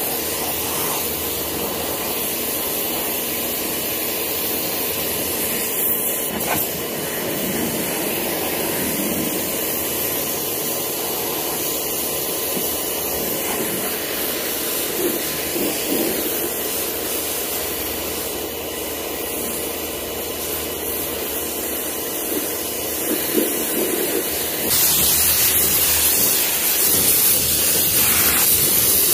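Pressure washer spraying a steady jet of water onto the car's bodywork, a continuous hiss with a low motor hum under it, turning louder and brighter near the end.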